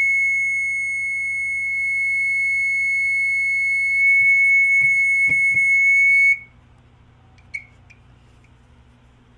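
Battery-powered smoke alarm sounding one continuous, steady high-pitched tone, with a couple of handling clicks about five seconds in; the tone cuts off suddenly a little after six seconds.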